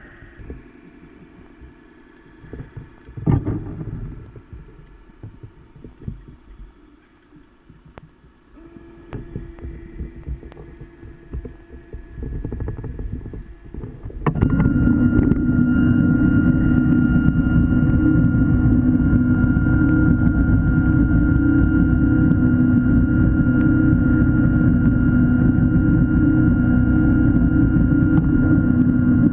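Underwater diver propulsion vehicle (scooter) heard through the water. For about the first half there are only irregular low rumbles and knocks. About halfway through, its electric motor starts suddenly and runs steadily, a low hum with a fainter high whine.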